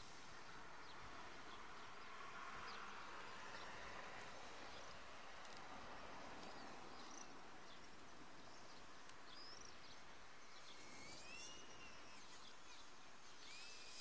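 Faint outdoor ambience: a soft, even buzz, with a few short rising-and-falling bird chirps in the second half.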